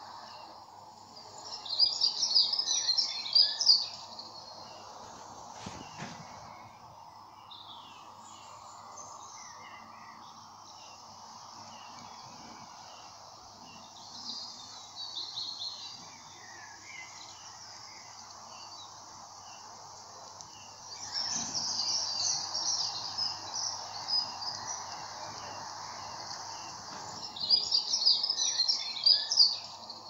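Small songbird singing in short bursts of rapid high notes, four times, over a steady outdoor background hiss.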